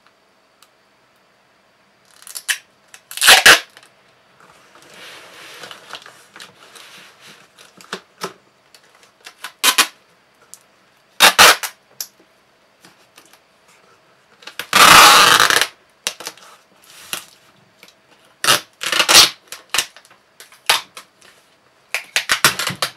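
Clear packing tape being pulled off its roll in loud ripping bursts and pressed down onto a cardboard box, with rustling and handling noises in between. The longest and loudest pull, about a second, comes about two-thirds of the way through.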